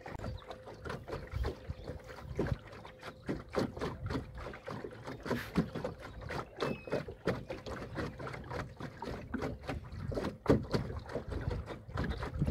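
Small waves slapping irregularly against a canoe's hull while under way, over a faint steady whine from a Torqeedo Travel 1103 electric outboard motor.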